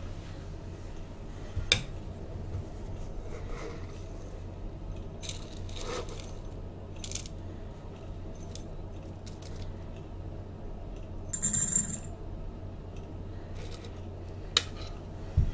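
A metal tea tin being handled and loose tea put into a glass teapot's infuser: scattered light clicks and clinks, a brief rattle about eleven and a half seconds in, and a sharp clink and a low thump near the end as things are set down.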